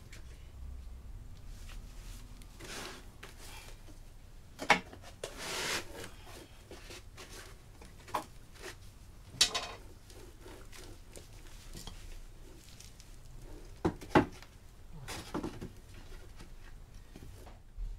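Scattered knocks and clinks of metal engine parts and tools being handled on a GM Ecotec engine block, about half a dozen separate hits with a brief scrape between, over a low steady background.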